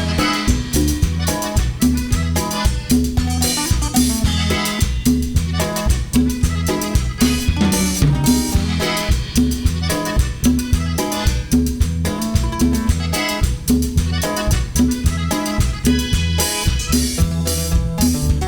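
Cumbia tejana band playing an instrumental passage with a steady drum-kit beat and a repeating bass line.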